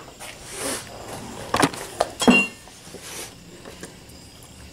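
Metal hand tools clinking and clattering as a flat screwdriver is fetched, a handful of sharp clinks with the loudest about two seconds in, one ringing briefly.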